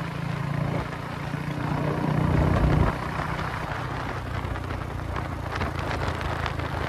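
Royal Enfield Bullet 350's single-cylinder engine running while riding. It builds for a couple of seconds, then drops off sharply about three seconds in and runs on steadily.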